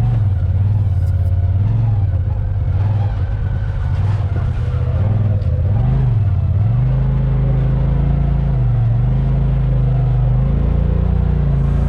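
A 2022 Polaris RZR Pro XP 4 side-by-side's turbocharged twin-cylinder engine running under changing throttle. The engine note dips and rises a few times, then holds steadier at a higher pitch from about halfway.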